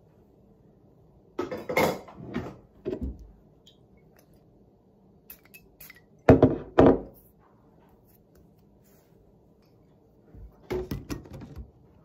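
Small objects handled on a tabletop: a glass perfume bottle and a hairbrush knock and clatter. In the middle come two short hissing sprays of the Diptyque Eau des Sens perfume bottle's atomizer, half a second apart, the loudest sounds. More knocks and rubbing follow near the end.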